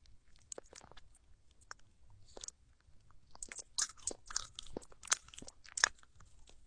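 A baby chewing and crunching fruit: an irregular run of crisp crunches and wet mouth clicks, thickest from about three to six seconds in.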